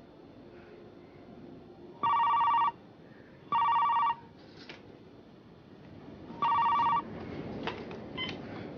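Cordless telephone ringing: three short electronic rings of about half a second each, a second or more apart.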